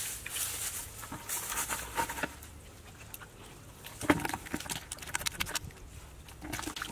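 Hands rustling through dry grass and straw and working in wet mud, making crackling rustles, with a sharper crack about four seconds in.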